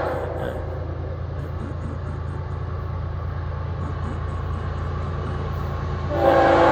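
Florida East Coast freight train's diesel locomotives rumbling steadily as the train comes by. The locomotive horn trails off at the start and sounds again, loud, about six seconds in.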